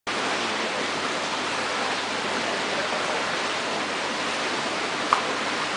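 Steady rushing of running water from aquarium filtration and plumbing, with a brief short tone about five seconds in.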